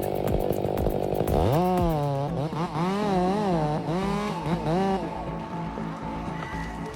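Chainsaw cutting into a large tree. The engine runs rough under load, then revs up sharply about a second and a half in, its pitch swinging up and down as throttle and load change, and it drops to a lower steady note near the end.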